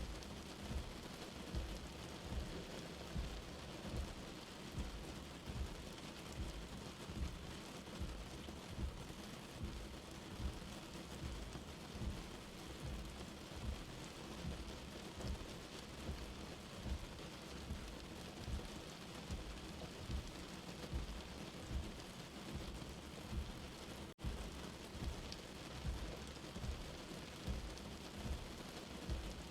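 Light rain falling steadily, with soft low thuds of drops landing about once a second. There is a momentary break in the sound about five seconds before the end.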